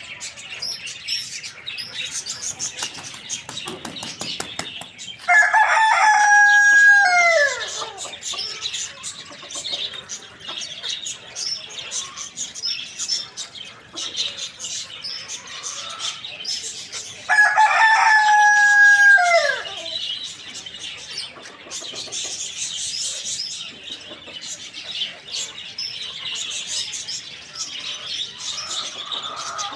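Rooster crowing twice, about twelve seconds apart, each crow a long held call that drops in pitch at the end. Between the crows a steady high chatter of chirps from other birds carries on.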